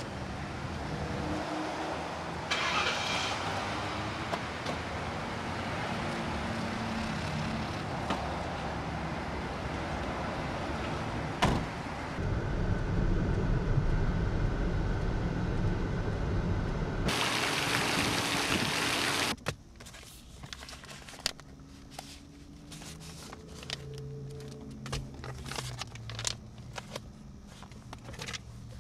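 Steady road and engine noise from inside a moving car, changing a few times and cutting off suddenly about two-thirds of the way through. After that, quieter light rustles and clicks of papers being handled.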